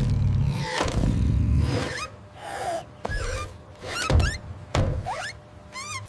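Cartoon sound effects for a small robot character: a low rumble for about the first two seconds, then a series of knocks and short rising electronic chirps, several in a quick upward run near the end.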